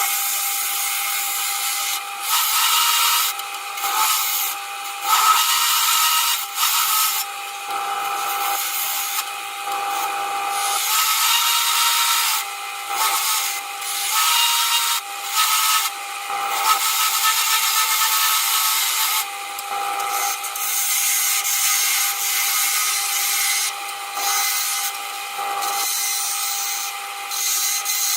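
Wood lathe running steadily with a turning tool cutting the spinning wooden mallet handle in repeated passes. The cutting hiss breaks off briefly many times as the tool lifts away, leaving the lathe's steady hum.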